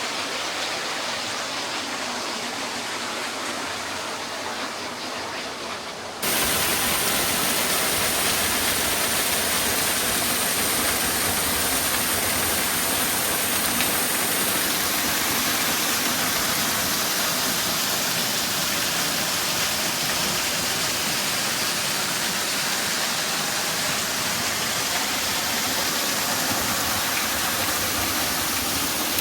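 Waterfall rushing in a steady, full roar of falling water. About six seconds in, it suddenly becomes louder and fuller.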